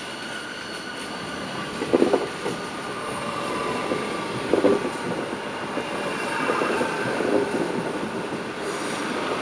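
Double-deck passenger train rolling slowly past close by, its wheels rumbling on the track with a steady high squeal. Loud clunks from the wheels on the rails come about two seconds in and again near five seconds, with smaller knocks after.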